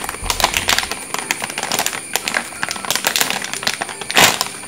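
Anti-static plastic bag crinkling and crackling in the hands as it is worked open, with a louder rustle about four seconds in.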